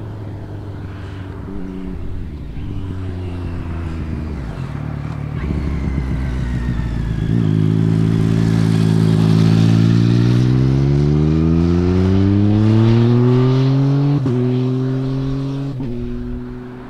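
A motorcycle engine accelerating out of a bend, its pitch climbing steadily for several seconds, then two quick upshifts near the end, each dropping the pitch. Lower engine and road noise from passing traffic comes before it.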